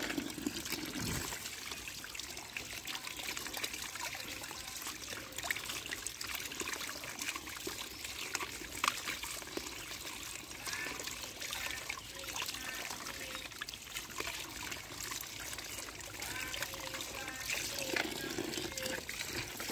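Tap water running in a thin stream and splashing over a toy vehicle held under it and into a plastic basket, with scattered small clicks throughout.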